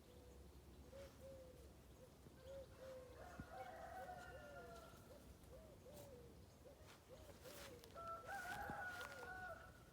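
Faint run of short, rising-and-falling calls from an animal, about two a second, with a couple of higher, longer calls among them.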